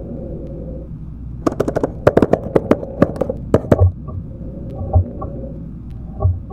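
Eerie analog-horror soundtrack: a low rumbling drone with a steady hum. About a second and a half in, a rapid run of sharp crackling clicks lasts about two seconds, followed by three deep thuds spaced roughly a second apart.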